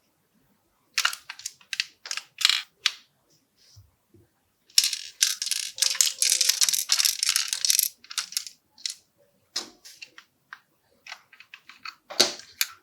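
Plastic LEGO pieces of a puzzle box clicking, sliding and rattling as it is handled. The clicks come in scattered groups, with a dense stretch of rattling about five seconds in and a louder clatter near the end.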